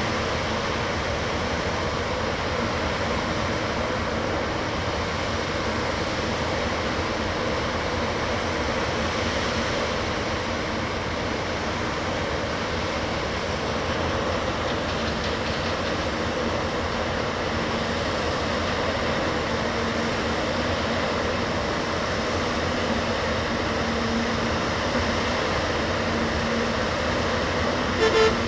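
Backhoe loader's diesel engine running steadily, with a couple of short sharp knocks just before the end.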